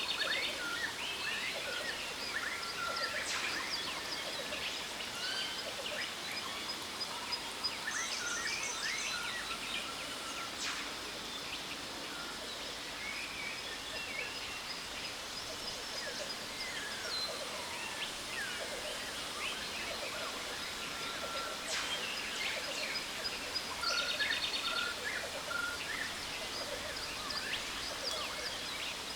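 Tropical jungle ambience: many birds chirping and whistling over the steady rush of a waterfall, with a thin, steady high tone throughout and rapid trills about 8 seconds in and again near the end.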